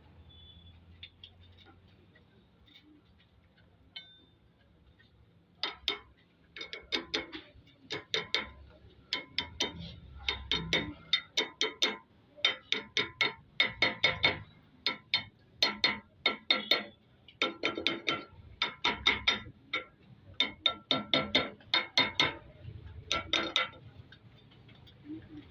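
Hand ratchet wrench clicking in short, quick strokes, one group of rapid clicks after another, starting about six seconds in and stopping near the end.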